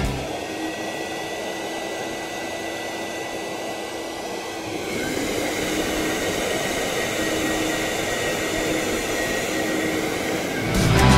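Lavor Taurus IR 2 WAY wet and dry vacuum cleaner running with a steady whine. About five seconds in, a second motor spins up: the pitch rises and the sound gets louder, then holds steady.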